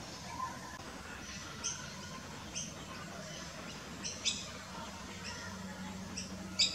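Several short, high bird chirps scattered over a faint, steady outdoor background.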